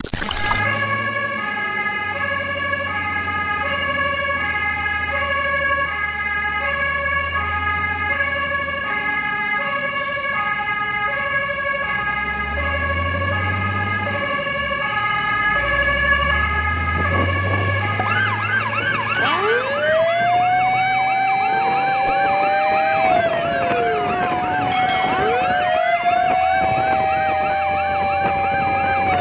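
Fire truck sirens on an emergency run, first an alternating two-tone hi-lo pattern. About two-thirds of the way in, slow rising-and-falling wails and a fast warbling yelp join it. The truck's engine runs underneath and revs up twice.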